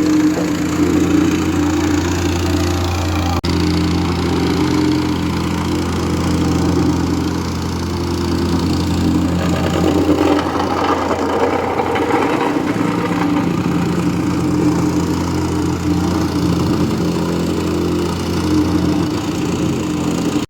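Heavy asphalt-paving machinery's engine running steadily, with a short dropout about three and a half seconds in. Between about nine and thirteen seconds the steady hum is overlaid by a rougher, noisier sound.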